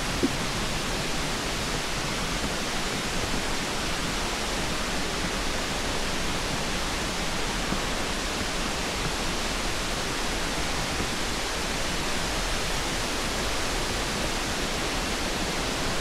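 Steady rushing of a cascading mountain creek, an even hiss that does not let up, with one short knock just after the start.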